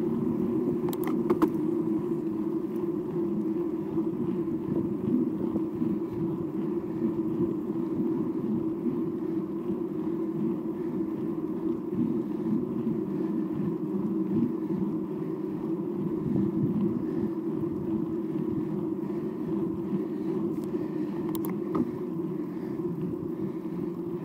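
Mountain bike rolling steadily on an asphalt lane: tyre hum mixed with wind noise on the camera microphone, with a few short clicks near the start and again near the end.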